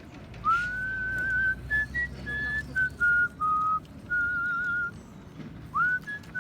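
A person whistling a melody by mouth in a clear, pure tone: a long note slides up about half a second in and is held with vibrato, then a run of short notes stepping up and down, another held note with vibrato, and a fresh note sliding up near the end.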